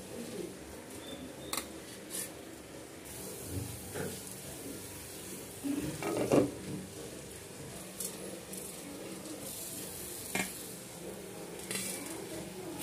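Metal spatula and utensils clinking and scraping against a nonstick pan and a kuzhi paniyaram pan while pancakes cook. Scattered sharp clinks, with a louder scrape about six seconds in.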